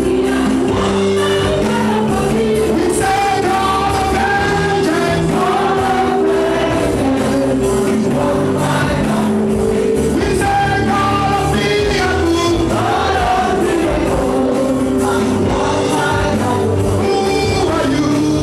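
Live gospel worship music: a congregation singing along with amplified music that keeps a steady beat, heard in a large hall.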